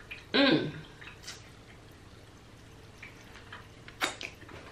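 A short hummed vocal sound about half a second in, then faint scattered mouth clicks from eating, with one sharper click near the end.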